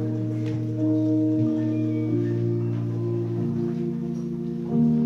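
Slow instrumental music: held, sustained chords that change every second or so, with no singing.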